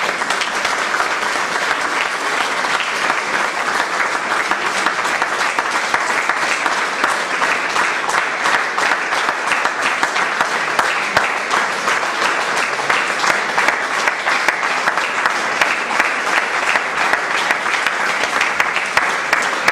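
Audience applauding at the end of a play: steady, dense clapping of many hands.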